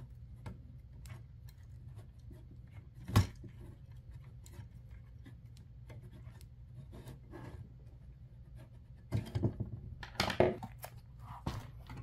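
Small metal clicks and scrapes of a screw being driven through a nut held in needle-nose pliers, fastening a circuit board to its mounting plate over plastic spacers, with one sharper click about three seconds in. Near the end, a short run of louder knocks and clatter of hardware being handled on a wooden table.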